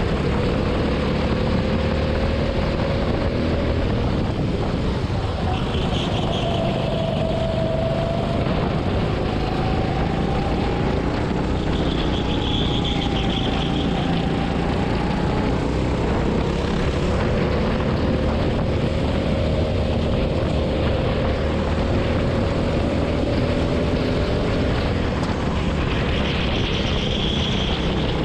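Racing kart's engine heard onboard at speed, its pitch rising and falling as the kart accelerates out of corners and slows into them. Three brief high-pitched sounds stand out over it, about six, twelve and twenty-six seconds in.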